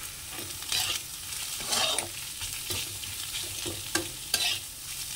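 A spatula scraping and tossing shredded cabbage, carrot, capsicum and egg around a kadai in several irregular strokes, over a steady sizzle of vegetables stir-frying in oil.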